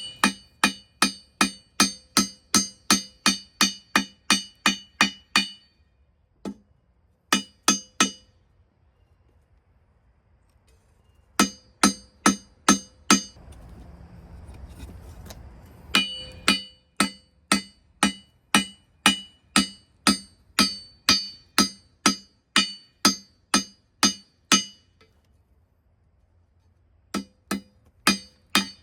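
Hammer striking steel on an anvil in steady runs of about three blows a second, each blow ringing, with short pauses between runs and a brief hiss in one of them.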